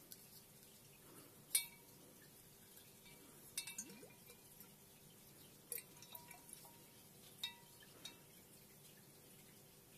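Light glassy clinks as a full glass whisky bottle is handled and turned in the hand, a scattered series of short knocks each with a brief ring, the loudest about a second and a half in.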